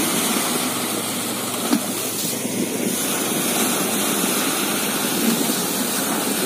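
Steady rushing wash of sea waves breaking and running up the beach.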